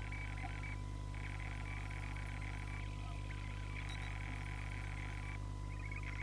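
Trilling animal calls, each a rapid pulsing trill about a second and a half long, repeating with short gaps, about four times, over a steady low hum.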